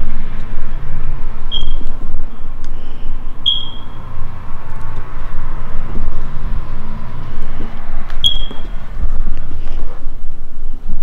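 A steady low rumble with a few short, high-pitched chirps that fade quickly, about one and a half, three and a half and eight seconds in.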